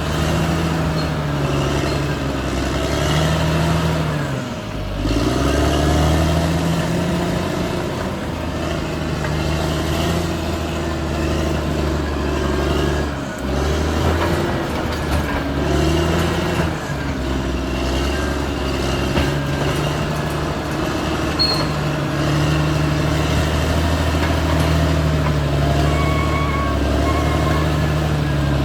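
Caterpillar D6R XL bulldozer's diesel engine working under load while cutting earth, its pitch dipping and recovering twice, with a few short beeps near the end.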